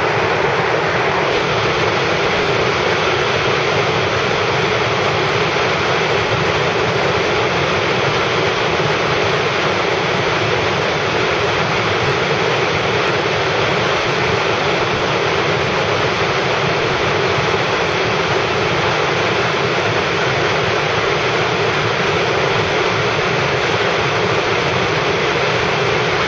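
Car driving at highway speed: steady tyre and wind noise, an even rushing rumble that does not change.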